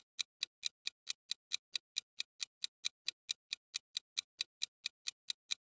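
Countdown-timer sound effect: a clock ticking quickly and evenly, about four to five sharp ticks a second.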